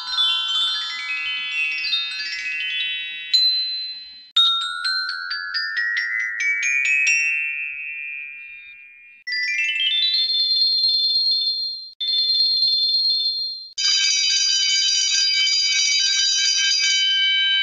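A string of Hanna-Barbera cartoon bell sound effects. First come quick rising runs of struck, glockenspiel-like bell notes that ring on. From about nine seconds in, continuous bells ring steadily in several short takes, each stopping abruptly.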